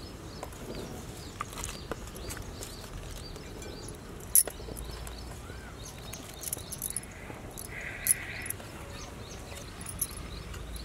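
Scattered light clicks and taps of utensils against a steel plate and a glass mixing bowl as chopped green chillies and coriander leaves are added, with one sharper click about four seconds in.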